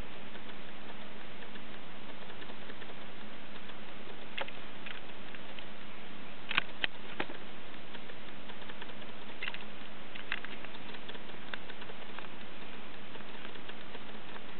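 Steady hiss with a faint low hum, and a few small sharp clicks scattered through it, the loudest three in quick succession about halfway through.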